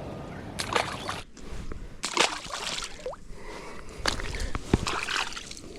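Shallow estuary water sloshing and splashing in several short, irregular bursts, as from wading or handling a fish at the water's edge.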